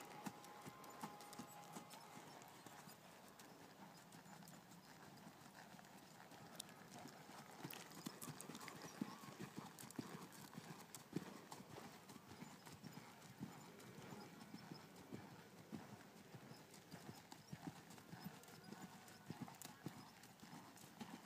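Faint, irregular hoofbeats of an American Quarter Horse gelding trotting under a rider on sand arena footing.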